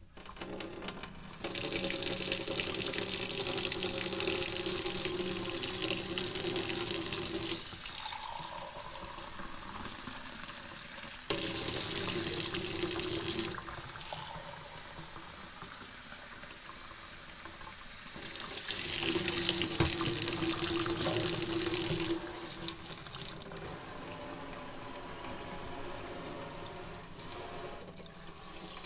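Kitchen sink tap running, water splashing into the basin. The flow gets louder and harder three times, with a low ringing from the basin, and eases to a softer splash in between.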